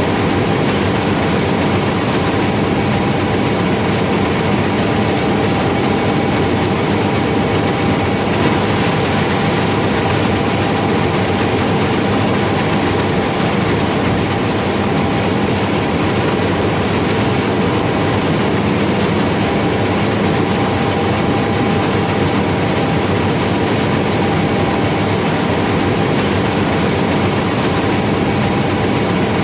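John Deere S770i combine harvester running steadily at work, with its six-cylinder diesel and threshing machinery making a constant dense drone and several held tones. A faint high whine in it stops about a third of the way through.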